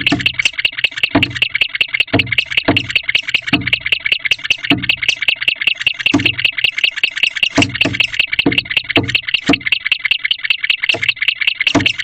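Young male barn owl giving his stomping and chirping display: a fast, even run of short chirps, about five a second, broken by irregular low thumps of his feet stomping on the nest box floor.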